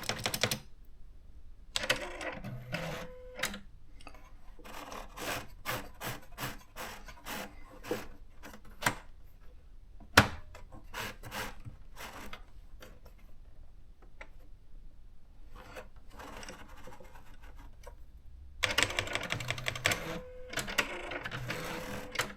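Electronic thermal typewriter being test-typed. Its keys click in irregular runs, with a single sharp click about ten seconds in. Twice, about two seconds in and again near the end, the carriage motor whirs with a steady hum as the print head travels.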